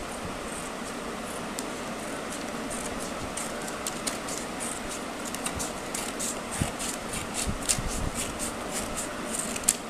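Scissors cutting a sheet of paper: a run of short snips that come more often from about three seconds in, over a steady background hiss.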